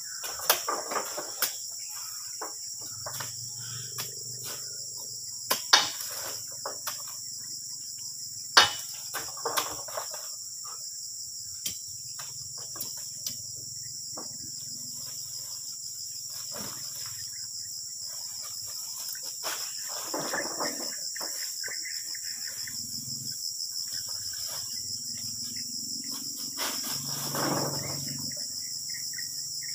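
Insects drone steadily at a high pitch. Several sharp knocks stand out, mostly in the first ten seconds, as oil palm fruit bunches are heaved on a spiked pole and dropped into a steel tractor trailer.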